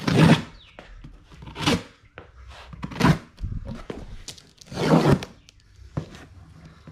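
Packing tape on a cardboard box being slit with a knife and torn open, in about four short rasping rips.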